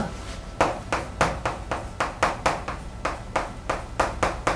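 Chalk on a blackboard as a line is written: quick, short, sharp strokes and taps, about three or four a second.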